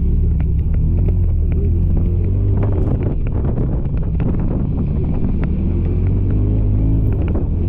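A vehicle engine rumbling steadily, its pitch wavering, with wind buffeting the microphone.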